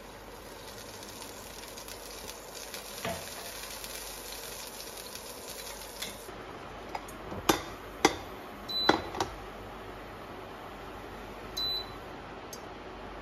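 Strawberry purée bubbling and hissing in a stainless steel saucepan as water is poured in, followed by a handful of sharp clinks of a utensil against cookware and a short high beep near the end.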